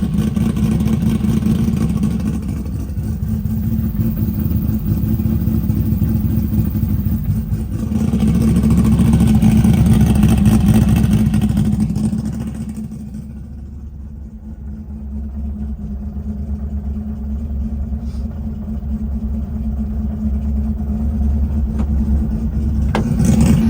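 Toyota Supra's 2JZ inline-six engine running, its revs climbing to a peak about ten seconds in, dropping away a few seconds later, then slowly building again.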